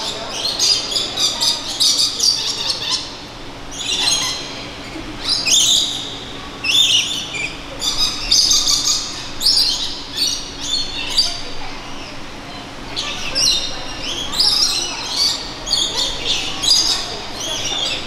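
A flock of lorikeets screeching: many short, shrill calls overlapping in dense bursts, with a couple of brief lulls.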